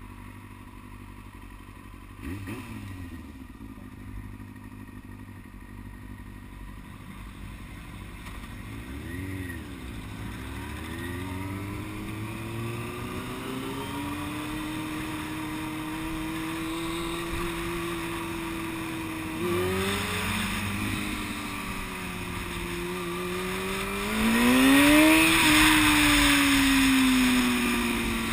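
Yamaha R6's inline-four engine through a Yoshimura aftermarket exhaust. It runs low and steady at first, then pulls away, the revs rising in steps as it goes up through the gears. It is loudest near the end.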